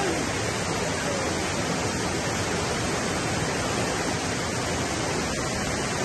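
Steady rush of whitewater from river rapids.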